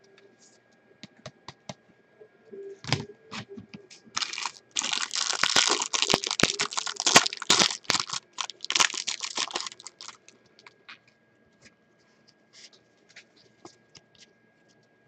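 Trading-card pack wrapper being torn open and crinkled for several seconds, with a few light clicks and handling noises before and after.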